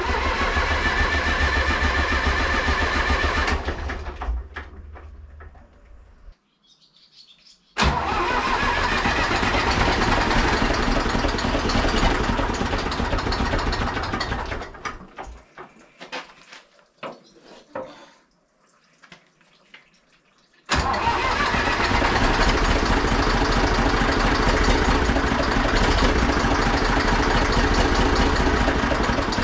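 Zetor 4911 tractor's three-cylinder diesel engine on start attempts after ten years standing: twice it catches, runs a few seconds and dies away unevenly, and about twenty seconds in it starts and keeps running steadily.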